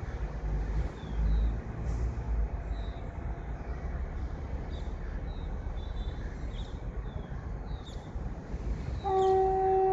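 Low steady rumble with a small bird's short chirps repeating over it; about nine seconds in a train horn starts, a loud steady blast.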